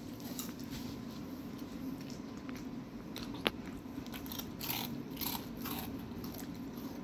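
Golden retriever puppy faintly crunching and chewing a biscuit in short scattered bites, with one sharp click about three and a half seconds in.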